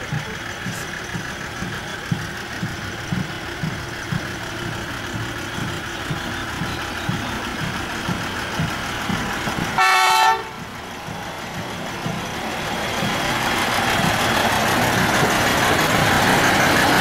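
Small narrow-gauge diesel locomotive running with a rhythmic low chugging as it approaches, sounding one short horn toot about ten seconds in. Its engine grows steadily louder as it draws close.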